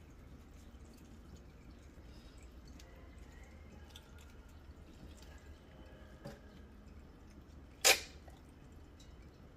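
Raw mackerel being gutted by gloved hands over a stainless steel sink: faint wet handling and squelching, with one sharp wet smack about eight seconds in, by far the loudest sound.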